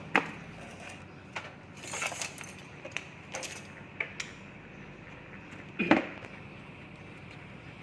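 Scattered light clicks and clinks of small hard objects being handled, such as tools or parts on a workbench, with one louder knock about six seconds in.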